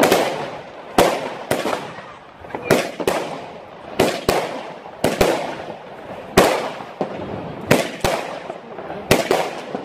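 Consumer New Year's firework battery firing shot after shot, about one to two sharp bangs a second as the shells burst, each bang trailing off.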